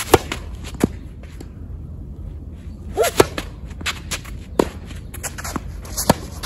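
Tennis rally: a racket sharply striking the ball on the serve just after the start, then further pops of ball on strings and court about every second, with a forehand hit near the end.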